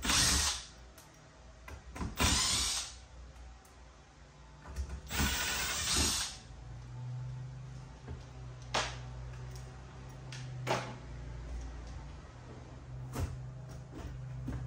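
Cordless power driver run in three short bursts of about a second each, backing out screws to open up the air handler's blower section. After that come a few sharp metallic clicks over a steady low hum.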